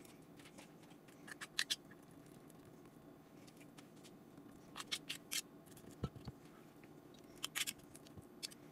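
Spoon scraping and tapping as thick muffin batter is portioned into a silicone muffin mould: faint scattered clicks and scrapes, a few clusters over a low steady background hum.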